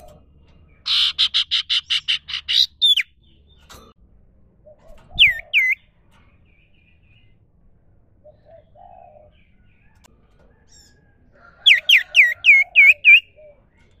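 Sirtu cipoh (iora) singing in bursts: a fast run of about ten buzzy, repeated notes, then two sharp whistled notes about five seconds in, and a quick series of about six falling whistles near the end.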